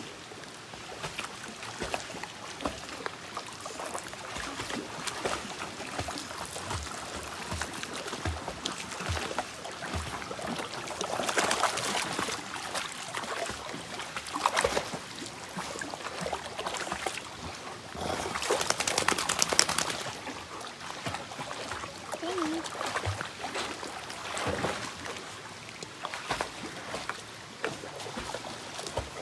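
A border collie wading and splashing in a shallow stream, pawing at the water and streambed, over the running water of the creek. The splashing comes in heavier bursts, loudest about a third of the way in and again about two-thirds in.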